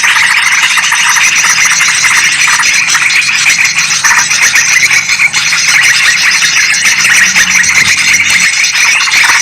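Yellow-vented bulbuls and sooty-headed bulbuls calling noisily together, many short chattering calls overlapping in a loud, unbroken din.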